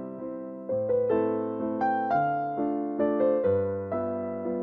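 Background music: a slow melody on piano, each note struck and fading, a new note about every half second over sustained low bass notes.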